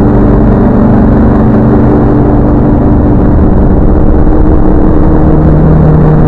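Heavily distorted, very loud, muffled logo music: a held low chord that sounds like a droning engine, with a new lower note coming in about five seconds in.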